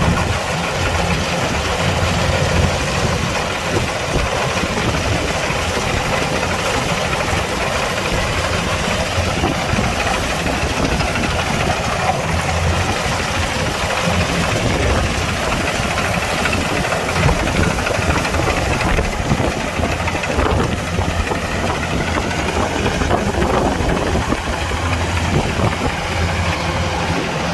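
Kubota DC-105X combine harvester running steadily with a continuous engine drone.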